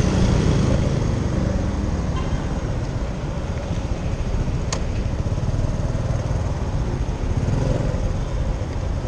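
Motor scooter engine running at low speed as the bike slows and pulls over, with steady low rumbling road and wind noise. A single sharp click comes about halfway through.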